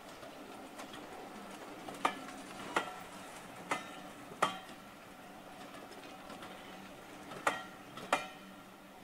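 Wheels of slowly passing railway coaches clicking over rail joints, in three pairs of sharp metallic clicks that ring briefly, over a faint steady rumble of the moving train.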